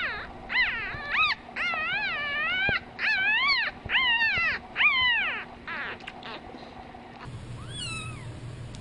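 A puppy whining and crying in a run of high, wavering cries over the first five seconds or so, fussing while feeding from a bottle. The cries then fade to fainter sounds.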